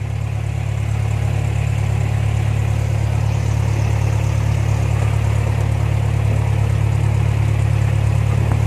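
Cessna 172's piston engine and propeller running steadily, heard from inside the cockpit, a deep even drone that grows a little louder over the first second and then holds.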